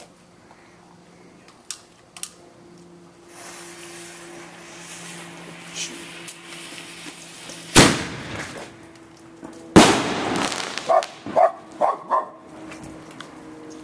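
A consumer firework set off: its fuse hisses from about three seconds in, then two loud bangs come about two seconds apart, the second trailed by a rushing, crackling hiss. Right after, a dog barks four times in quick succession.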